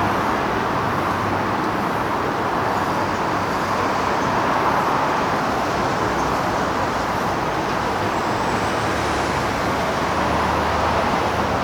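Steady road traffic noise, with a low engine hum rising in for a few seconds near the end, as a vehicle passes.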